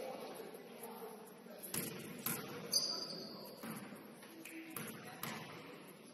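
A basketball bouncing on a hardwood gym floor, a handful of sharp knocks at uneven intervals as a player dribbles at the free-throw line before shooting, over faint voices in the hall.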